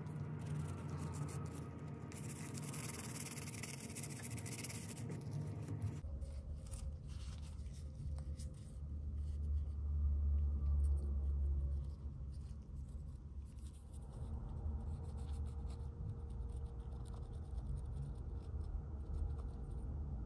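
Small parts of an Apple iPod Classic being handled and worked on: light scraping and rubbing with many small clicks, over a low hum. The sound changes character about six seconds in.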